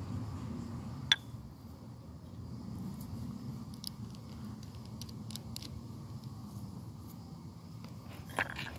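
Quiet background with one sharp click about a second in and scattered light ticks and taps: small glassware (a glass beaker and glass tube) being handled.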